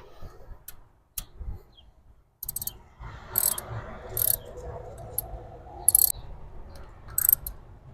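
Ratchet wrench clicking in short bursts as the screw holding an ignition coil is driven in, with a few sharp metal clicks before it.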